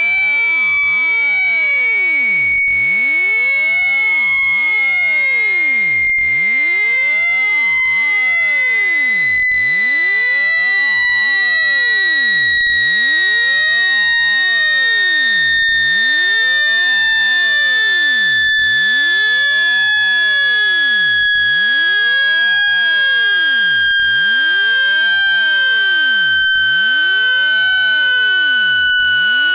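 Electronic speaker-cleaning tone: one continuous, high, buzzy tone at a steady loudness, gliding slowly and evenly down in pitch.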